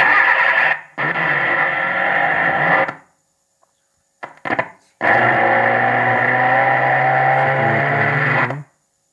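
LG Slim TV loudspeaker sounding loud, distorted audio with a hum, cutting in and out: about three seconds, a brief burst, then about three and a half seconds. This is the TV's sound being fed by a wire into the input pin of the LV1116N tone-control IC. That sound comes through this way points to the LV1116N as the cause of the set having no sound.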